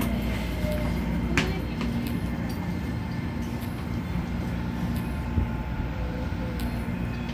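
Keisei 3000 series electric train running: a steady low rumble of wheels on rail with faint motor tones that shift in pitch and a sharp click about a second and a half in.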